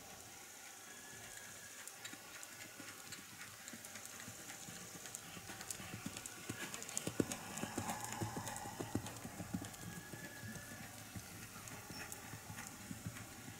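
A horse's hooves beating on a sand arena at the canter, a run of soft thuds, loudest about halfway through as the horse passes close by.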